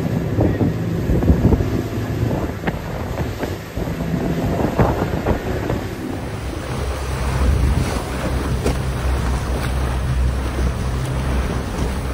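Boat motor running under wind buffeting the microphone, with water splashing against the hull and a few knocks. The motor's low steady hum gets stronger about halfway through.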